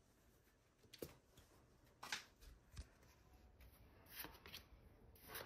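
Very faint flicks and rustles of Pokémon trading cards being slid one behind another as a stack is looked through by hand, a few irregular soft clicks over near silence.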